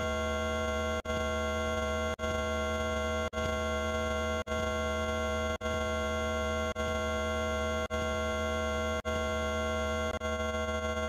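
A steady electronic tone with many pitches sounding at once. It restarts about once a second, with a brief break each time, as one sound effect clip is played again for each number counted.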